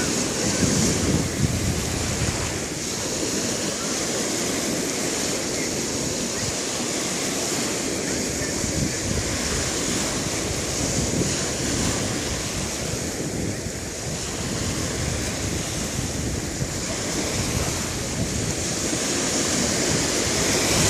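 Sea waves washing onto a beach in a steady, continuous rush of surf that swells and eases a little, with wind rumbling on the microphone.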